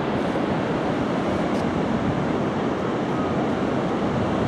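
Pacific Ocean surf breaking on the beach: a steady, even rush of waves, with wind on the microphone.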